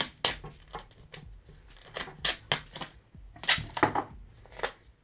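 Duct tape being pulled off the roll and torn, a series of short, irregular rips.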